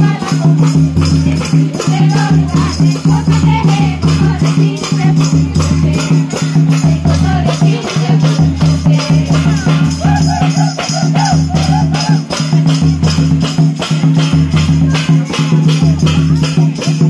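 Folk song playing loudly: a singing voice over a steady drone, a pulsing bass beat just under once a second and quick, even ticking percussion.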